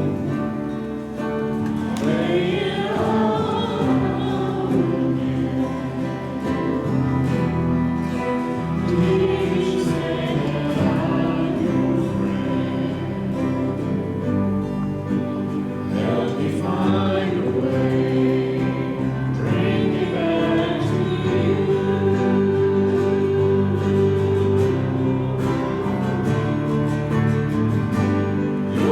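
Church worship band playing a song, with voices singing over it.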